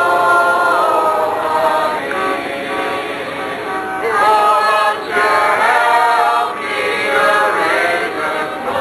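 A group of voices singing together, holding notes that step up and down in pitch.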